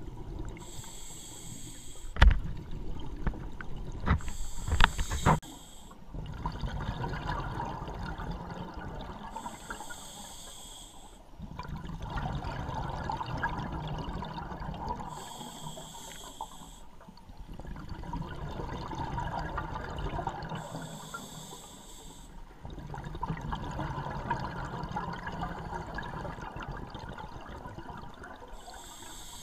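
Scuba diver breathing through an open-circuit regulator underwater: a short hiss of inhalation, then several seconds of bubbling exhaust, repeating about every five to six seconds. A few sharp knocks sound in the first six seconds.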